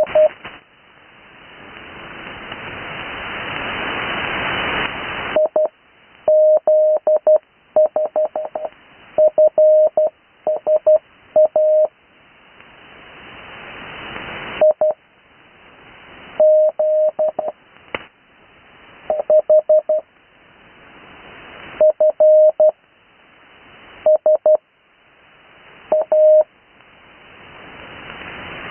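Morse code received by radio on the 80-metre amateur band: a single steady mid-pitched tone keyed in groups of dits and dahs, with pauses between the groups. Receiver hiss rises in each pause and drops back when the tone returns.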